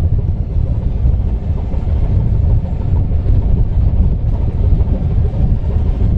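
Loud, gusting low rumble of wind buffeting the microphone on a ship's deck at sea.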